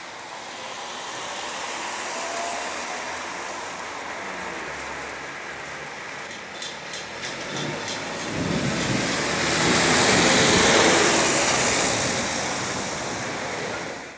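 Rolling thunder: a long, deep rumble that builds from about eight seconds in, peaks a few seconds later and slowly eases, over a steady hiss. A short run of quick clicks comes just before it.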